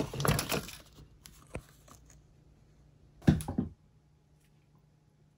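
Rustling and clattering of packaged food being moved around by a hand rummaging in a refrigerator, dying away within the first second. A single click follows, then a short clatter about three seconds in.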